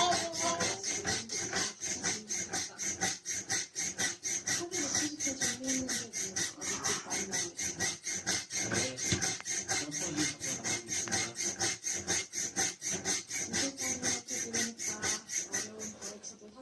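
Metal coil springs of a spring-mounted ride-on toy squeaking and rasping in a fast, even rhythm, about five strokes a second, as a toddler bounces on it. The springs are dry and noisy, which the owner thinks calls for oiling.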